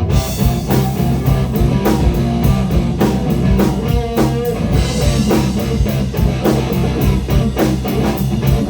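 Live blues-rock band playing, led by electric guitar over a drum kit keeping a steady beat.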